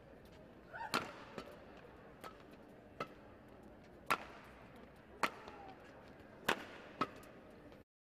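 Badminton rally: sharp cracks of rackets striking the shuttlecock, six loud hits at irregular intervals about a second apart, with fainter knocks and a couple of brief squeaks in between. The sound cuts out abruptly near the end.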